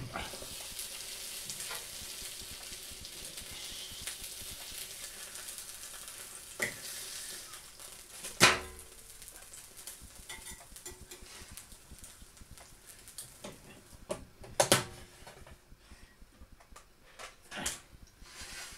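Filled dough sizzling with a steady hiss in an electric pie maker as its lid is opened, the hiss dying away after about eight seconds. A few sharp knocks and clatters follow as the cooked calzone is lifted onto a plate and cut, the loudest about eight seconds in.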